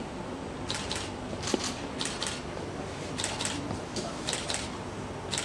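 Camera shutter firing in a quick series, each shot a sharp double click, about one a second.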